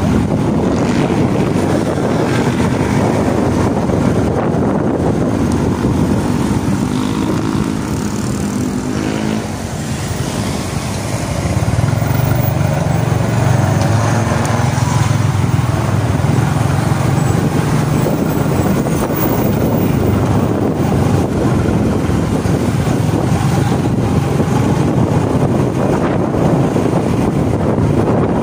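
Motorcycle engine running while riding, with wind rushing over the microphone. The engine eases off about ten seconds in, then picks up and runs louder and steady for the rest.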